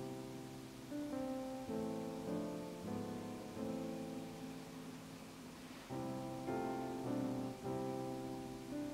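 Soft background piano music: held chords changing every half second or so, dipping quieter for a while in the middle.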